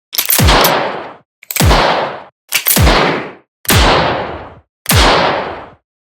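Revolver gunshot sound effect: five single shots about a second apart. Each is a sharp crack with a low thud that drops in pitch and a ringing tail of nearly a second.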